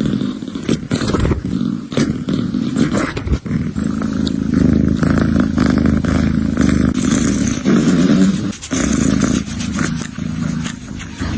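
Kitten purring close to the microphone, a steady low rumble, under scratchy rubbing and clicking from its fur being cleaned.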